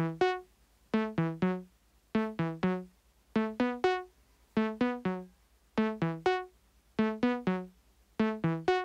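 Eurorack modular synthesizer voice played by a Monome Teletype sequencer: a short looping melody of plucked, quickly decaying notes in groups of three, a group a little more than once a second. The pitches shift from group to group as the sequencer's probability-based note jumps randomly come in or drop out.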